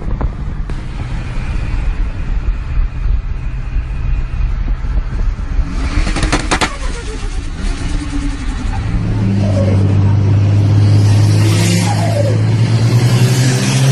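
Turbocharged car engine running and revving. About six seconds in comes a quick fluttering chatter, typical of turbo flutter (compressor surge) when the throttle is lifted. For the last few seconds a loud, steady engine drone follows, rising slightly in pitch near the end.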